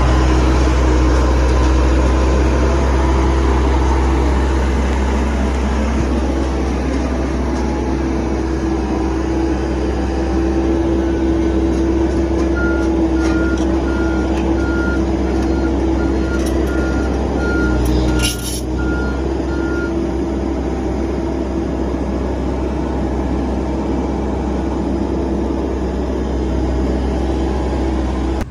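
Engine of an earth-moving machine backfilling the excavation, running steadily, with its reverse alarm beeping for several seconds around the middle and a single clank shortly after.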